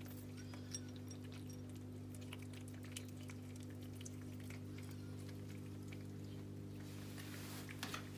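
Cat eating dry kibble from a bowl: faint, irregular crunches and small clicks over a steady low hum.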